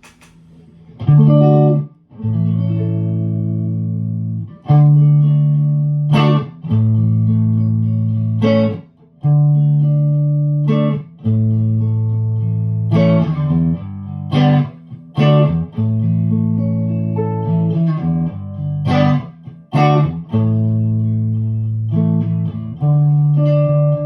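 Electric guitar played through a newly built Overtone Special 50-watt amplifier: chords are struck and left to ring for a second or two each, with short picked runs between them.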